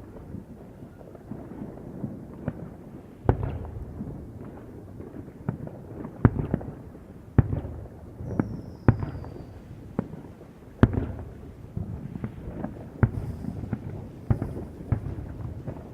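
Fireworks going off: an irregular run of sharp bangs, roughly one or two a second, each trailing a low rumble, with a short falling whistle just after the middle.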